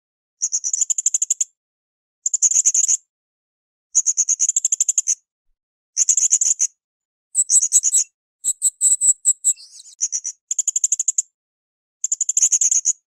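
Blue-crowned hanging parrot (srindit) calling: a series of short, shrill, high-pitched rapid trills, each about a second long, repeated about every two seconds, with one differently shaped phrase midway.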